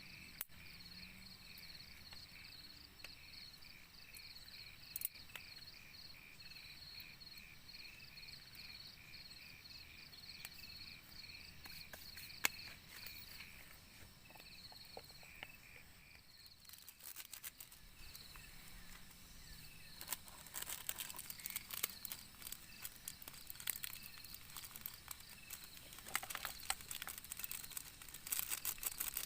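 Forest insects chirping in a steady, rapid pulse. A little past halfway the chirping gives way to dense crackling and rustling.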